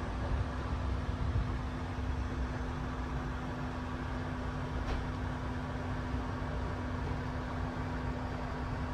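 Steady low rumble and hum inside a compartment of the Cassiopeia sleeper train, with a faint even tone held over it.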